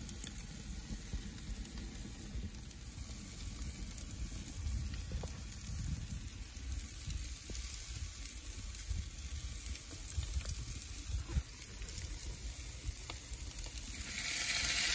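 Macaroni and cheese in a glass baking dish sizzling in a hot wood-fired oven, a steady hiss with the occasional faint pop from the fire. A louder sizzle comes in near the end.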